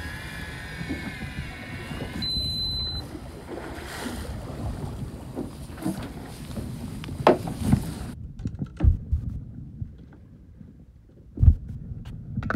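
Wind and water noise aboard a small fishing boat while a hooked fish is brought up to the surface. There is a brief high beep about two seconds in and several dull thumps in the second half.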